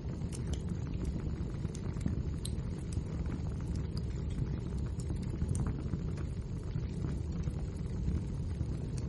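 Wood fire burning in a fireplace: a steady low rumble of the flames with scattered small crackles and pops from the burning logs.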